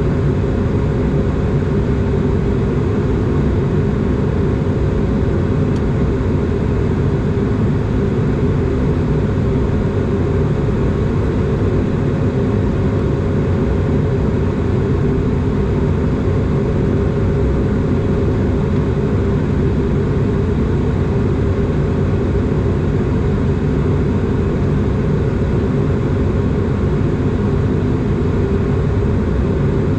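Steady low cabin drone of an Airbus A220 in flight: the noise of its Pratt & Whitney geared turbofan engines and the airflow, with a faint steady tone running through it.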